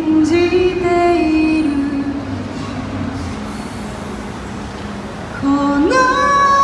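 Woman singing live into a microphone over electronic keyboard accompaniment. Her held note falls away about two to three seconds in, leaving a quieter stretch with a steady keyboard tone, then she comes back in near the end with a note that rises and is held.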